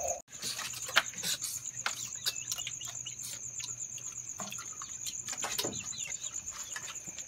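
Night insects trilling steadily in a high, even pulse, with scattered sharp clicks and cracks from crab shells being broken open by hand.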